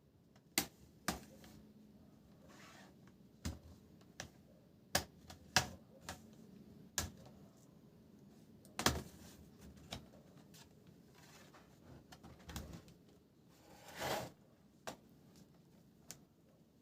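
Irregular sharp clicks and taps of hands and tools working on a laptop's plastic case and parts, with a short scrape about fourteen seconds in.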